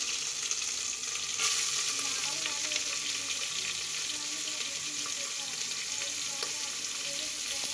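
Sliced onions going into hot oil and spices in a pressure cooker, sizzling and frying. The sizzle jumps louder about a second and a half in as the onions hit the oil, then holds steady.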